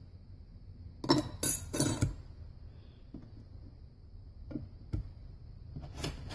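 Clutch plates for a 1955 Oldsmobile Hydra-Matic rear clutch clinking against each other and the steel drum as they are stacked in: a quick run of clinks about a second in, then a few single clinks later.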